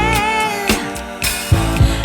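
Background music with a sung melody over a steady drum beat and bass.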